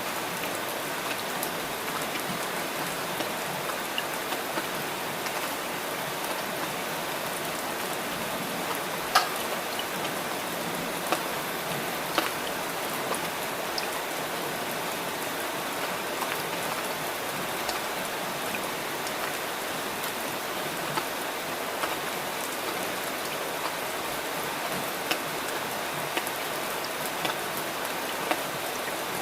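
Steady rain falling, a constant hiss with scattered louder drops ticking nearby, the sharpest about nine seconds in.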